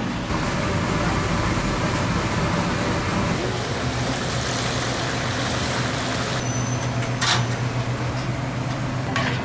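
Battered tempura deep-frying in a wok of hot oil, a steady sizzling hiss over a low hum, with a sharp metal clink about seven seconds in.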